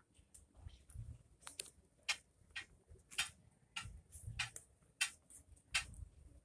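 Quiet, irregular little clicks and smacks of tabby kittens suckling at their mother cat, about two a second.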